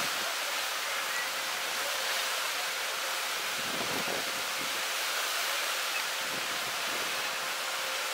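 Steady hiss of sea waves washing against a rocky shore, with a faint steady hum underneath.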